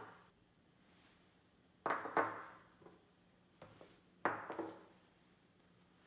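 Small ceramic dishes set down one after another on a tabletop. There are two clinks about two seconds in and another a little after four seconds, each with a brief ringing tail.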